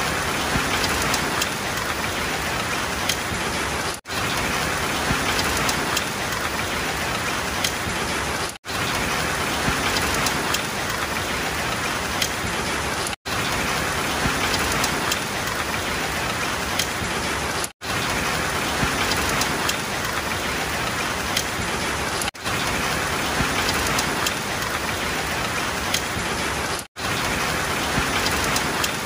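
Heavy rain pouring onto asphalt and parked cars, a dense steady hiss that cuts out for an instant about every four and a half seconds.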